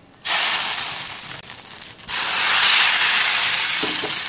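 Appam batter sizzling as it is poured onto a hot appam pan. The sizzle starts suddenly about a quarter second in, fades, then starts again just after two seconds and slowly dies down.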